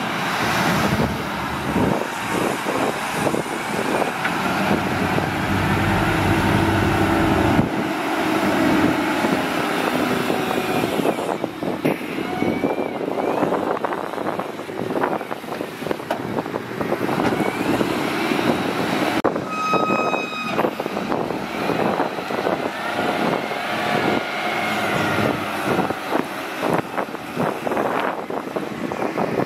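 Diesel engines of a DISD SD300N wheel loader and a dump truck running under load while moving and tipping sand. About two-thirds of the way through, a short high tone sounds for about a second and a half.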